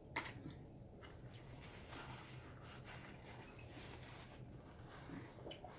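Faint, scattered small clicks and rustles of people eating at a table, over a low steady room hum.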